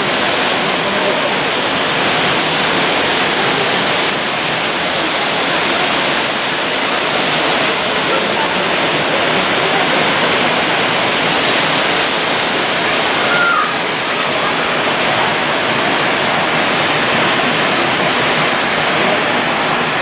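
Waterfall pouring into a pool: a steady, loud rush of falling water.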